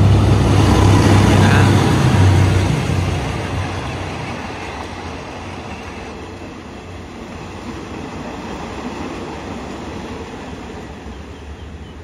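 Diesel-electric locomotive hauling a passenger train passes close by, its engine loud with a low hum, followed by the carriages rolling past on the rails. After about two and a half seconds the sound fades as the train moves away, leaving a steady rumble of wheels on track.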